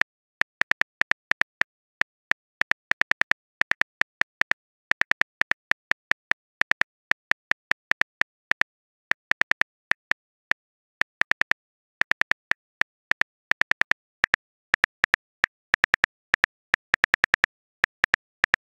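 Smartphone keyboard clicks, the tap sound of typing a text message: short, sharp ticks in quick irregular bursts of several a second, separated by brief pauses.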